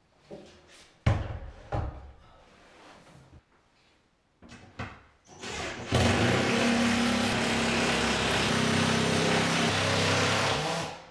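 A few knocks and bumps as a wall-mounted water heater is handled onto its bracket, then a cordless drill runs steadily for about five seconds and stops near the end.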